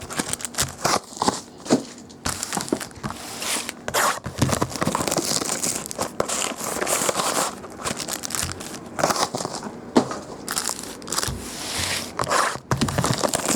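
Plastic shrink-wrap on sealed trading-card boxes being torn and crinkled as the boxes are opened. Irregular rustling bursts with sharp crackles run throughout.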